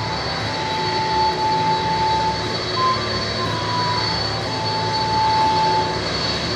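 Four jet engines of a Boeing 747-400 running as the jumbo rolls along the runway: a steady rush of engine noise with a high whine over it.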